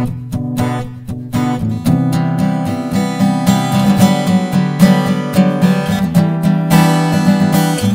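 Tombstone 430 NAT cutaway acoustic guitar strummed in quick, even strokes, with a change to a fuller chord about two seconds in.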